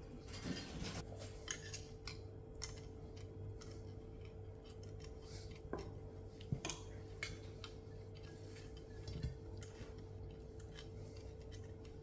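Metal spatula scraping and clicking on a stainless steel plate as it spreads and presses thick chocolate fudge, in scattered light strokes over a faint steady hum.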